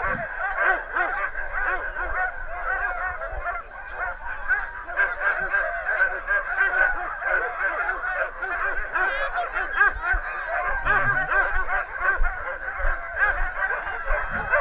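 Many sled dogs barking and yelping at once in a continuous chorus of overlapping high calls: harnessed huskies excited to go on a run.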